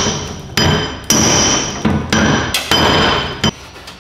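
Hammer blows on the steel floor pan of a 1968 Datsun 520 pickup cab, knocking down a hump in the floor. About seven sharp, ringing metallic strikes come in an uneven rhythm and stop shortly before the end.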